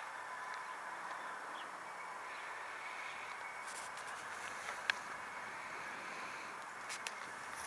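Steady background hiss with a faint steady tone, broken by a sharp click about five seconds in and a couple of lighter ticks near the end.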